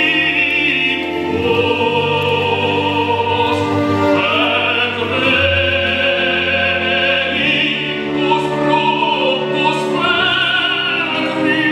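Operatic singing with instrumental accompaniment: long held notes with a wavering vibrato over sustained low notes, playing continuously.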